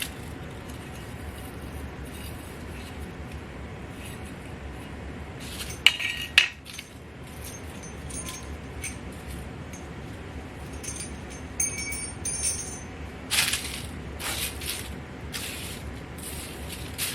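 Small metal parts clicking and clinking as the heater box is taken apart: its spring clips being pried off the housing. Two sharp snaps come about six seconds in, light metallic clinks follow later, and a run of short scrapes comes near the end.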